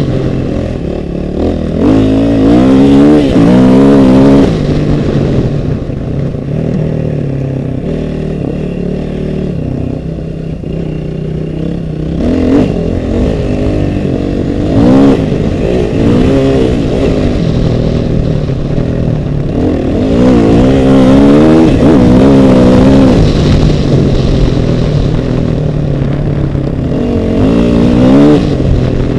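An off-road vehicle's engine running close by, its pitch rising and falling as it revs again and again under changing load, with a couple of sharp knocks about halfway through.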